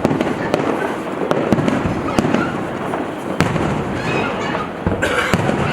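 Aerial fireworks bursting: an irregular run of sharp bangs and crackles, about a dozen distinct reports, over a continuous rumble of shells going off.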